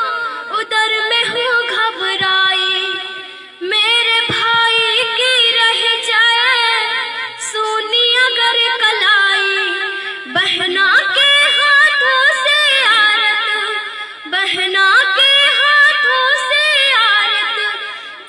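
A young girl singing a Hindi song into a microphone, in long wavering phrases broken by short breaths three times.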